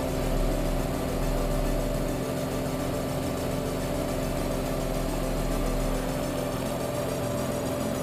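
Engine and propeller of a small single-engine high-wing plane droning steadily in flight, with wind rushing past the open jump door.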